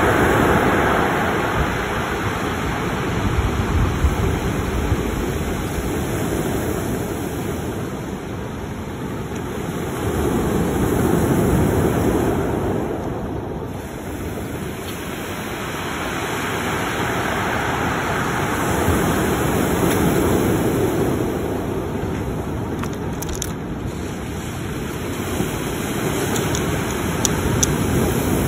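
Ocean surf breaking and washing up a cobble beach, a steady rushing that swells and fades about every ten seconds.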